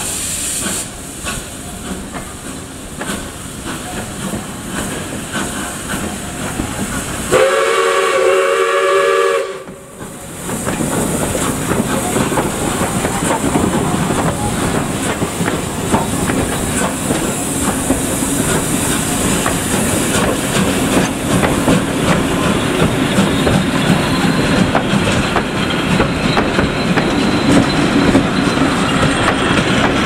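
South Australian Railways 620 class steam locomotive 621 working a passenger train: steam hissing with regular exhaust beats, then about seven seconds in a whistle blast of about two seconds, several notes sounding together. After it the locomotive and carriages roll past with wheels clicking over rail joints, growing louder.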